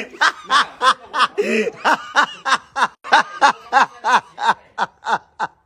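Hearty laughter: a long run of short ha-ha bursts, about three a second, that trails off and stops shortly before the end.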